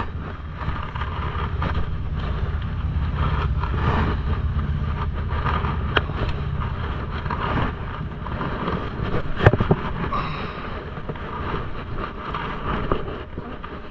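Hands hauling a wet rope in over a dock edge, with rustling handling noise and a couple of sharp knocks, about six seconds in and again near the middle, all over a steady low rumble.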